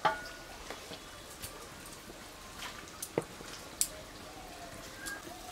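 Fish curry broth boiling in a metal pot: scattered bubbling pops and plops, with a few sharper ones in the first second and around three to four seconds in.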